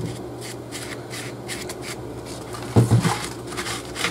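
Paper towel dabbing and rubbing paint onto a painted foam sculpture: a run of soft, scratchy papery strokes, with a couple of low knocks about three seconds in.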